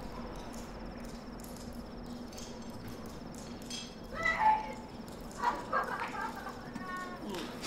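A woman whimpering and crying out in distress: a few short, strained wavering cries starting about halfway through, over a low steady hum.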